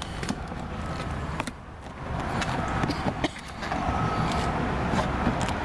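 Steady low rumble of traffic, with a few sharp clicks as plastic door-trim clips are pried loose.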